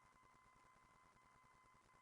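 Near silence: faint hiss with a faint steady high tone.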